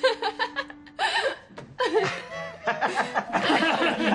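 A woman laughing in short rapid bursts, over background music.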